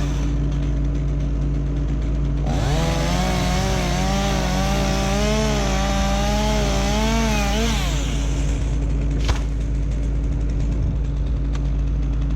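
Stihl MS 201T two-stroke top-handle chainsaw revving up about two and a half seconds in and cutting for about five seconds, its pitch wavering as it bogs under load, then dropping back to idle. A steady engine drone runs underneath throughout.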